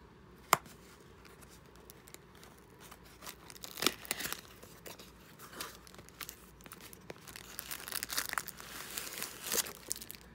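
A package being torn open: tearing and crinkling of the packaging in irregular spurts that grow busier toward the end, after a single sharp click about half a second in.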